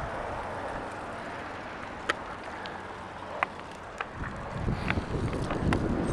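Wind buffeting the microphone of a camera on a moving bicycle in strong gusts, over steady road noise. A few sharp clicks come through, and the low wind gusts grow heavier about four seconds in.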